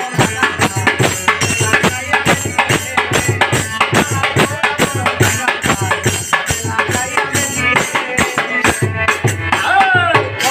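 Bangla folk song accompaniment: a fast, even beat of hand drum with jingling rattle-type percussion. A man's singing voice comes in about a second before the end.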